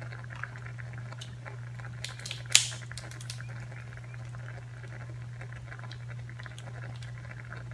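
Snow crab leg shell being cracked and pulled apart by hand: a few small clicks and one sharp crack about two and a half seconds in, over a steady low hum.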